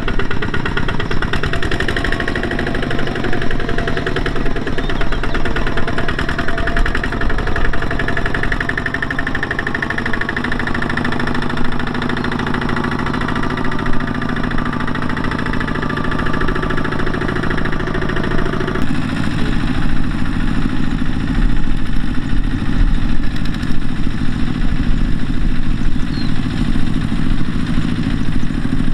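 Single-cylinder diesel engine of a Kubota two-wheel walking tractor running as it pulls a trailer, a fast, steady chugging. About two-thirds of the way through the engine sound changes abruptly in tone.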